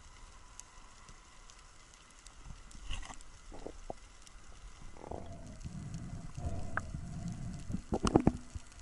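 Underwater sounds of a speared brown meagre struggling on a spear shaft: faint crackling with scattered knocks, a low rumble from about five seconds in, and a cluster of loud knocks near the end.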